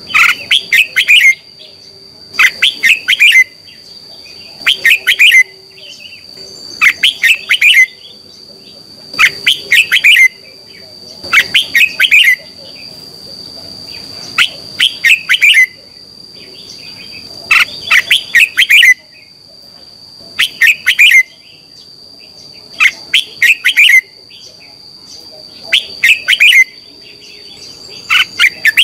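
Red-whiskered bulbul singing: short, bright phrases of quick chattering notes, repeated about once every two seconds. A steady high-pitched whine runs underneath.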